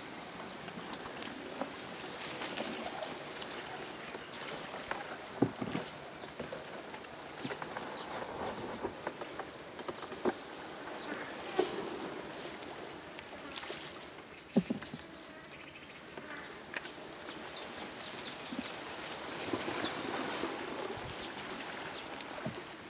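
Reeds and grass brushing along a wooden canoe as it is poled through a reed swamp, a steady swishing, with a few sharp knocks. Small birds chirp in quick high notes near the end.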